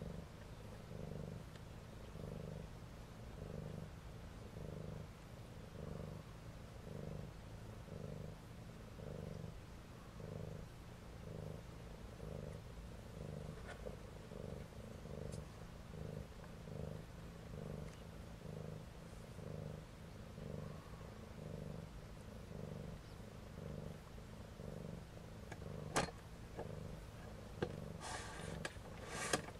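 Cat purring steadily with nursing kittens, the purr swelling and fading with each breath about one and a half times a second. Near the end there is a sharp click, then a few seconds of rustling.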